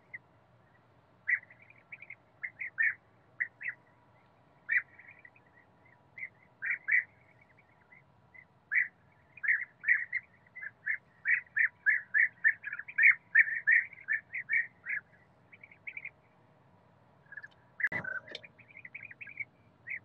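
Asian green bee-eater calling: short chirping notes, scattered at first, then a fast run of them in the middle. A single sharp knock comes near the end.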